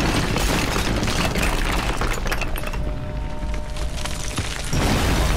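Dramatic action film score mixed with loud crashing and breaking-stone sound effects. A heavy crash at the start as a stone statue breaks apart, then another surge of crashing about five seconds in.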